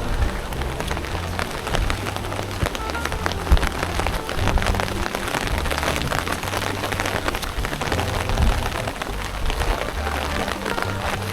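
Heavy rain falling on an umbrella held overhead: a dense, steady run of drop hits. Low background-music notes sit underneath.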